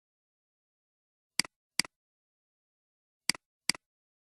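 Computer mouse button clicking: four short sharp clicks in two pairs, the first pair about a second and a half in, the second near the end.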